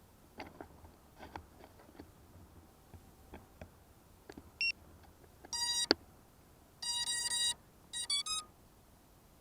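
Electronic buzzer beeps from FPV drone gear: one short high beep, then a beep of under half a second, a longer beep of about half a second, and three quick beeps. Faint clicks from handling the gear come before them.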